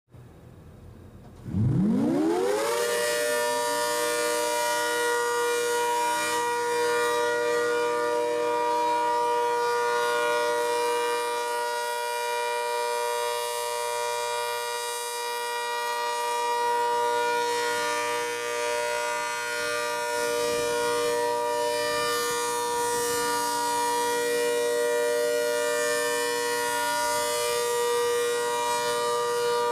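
ACA Hurricane 130 MKII outdoor warning siren winding up, its pitch rising fast over about a second, then holding a steady tone for the alert signal. Its loudness swells and dips gently as the horn rotates.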